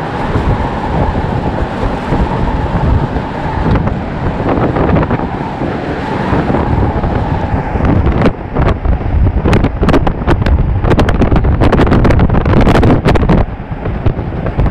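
Gale-force wind buffeting the microphone on the deck of a bulk carrier in a storm sea, a heavy low rumble. From about eight seconds in the gusts hit harder, in a rapid run of sharp crackling knocks, easing just before the end.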